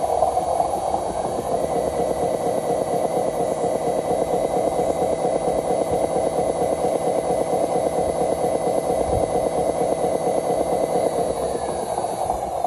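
Drive motor and gears of a homemade RC truck whirring as it crawls under load. A thin whine rises about a second and a half in, holds steady, and falls away near the end.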